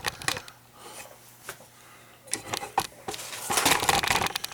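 Scattered light metallic clicks and clinks of parts and tools being handled, with a quick run of them near the end.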